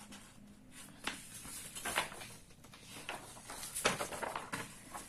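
A sheet of paper being folded and handled: a series of short, soft rustles and creases, the sharpest a little before four seconds in.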